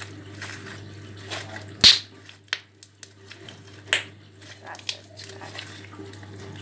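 Slime worked by hand, giving wet squelches and a handful of sharp pops, the loudest about two seconds in.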